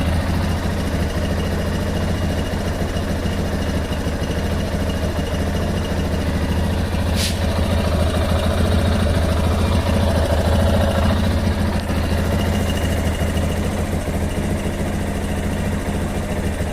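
Yamaha Lander 250 single-cylinder engine idling steadily, carrying the strange noise the owner is asking about, a noise that goes away after the engine has run a while. One sharp click about seven seconds in.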